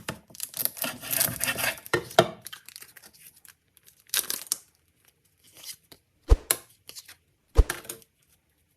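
Foil Pokémon card booster pack wrapper being torn open and crinkled, followed by scattered rustles and a few short, sharp snaps as the packaging is handled.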